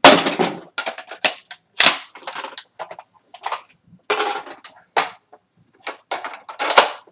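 Hard plastic Nerf blaster parts clattering and clacking as they are handled and fitted together: a run of sharp knocks and rattles, the loudest right at the start and another about two seconds in.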